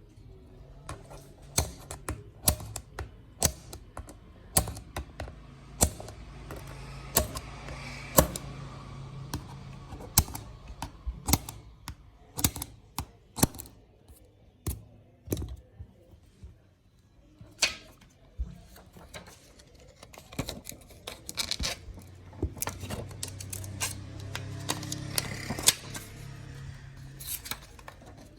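Glass breaker tool on iPhone back glass: many sharp, irregular clicks and taps as the glass is broken up so it can be removed. Under them a low steady hum comes and goes.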